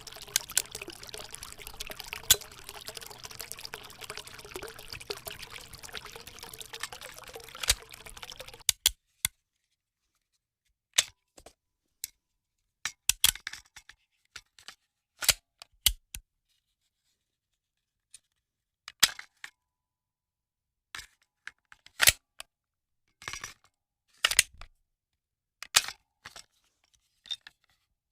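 Water pouring and trickling steadily for about nine seconds, then cutting off suddenly; after that, a series of short, sharp clicks and snaps separated by silence.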